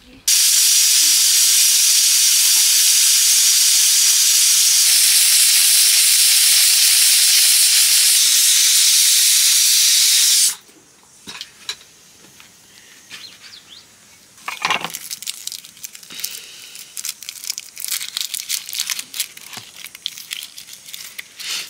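Pressure cooker on a wood fire venting steam in a loud, steady hiss for about ten seconds, cutting off suddenly. Then light clicks and rustling as a red onion is peeled by hand.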